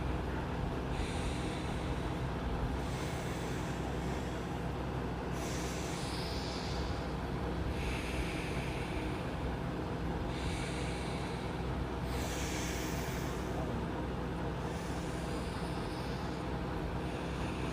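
Slow, deep breaths drawn in and out through the nose, each lasting one to two seconds, in the even rhythm of anulom vilom alternate-nostril breathing, over a steady low machine hum.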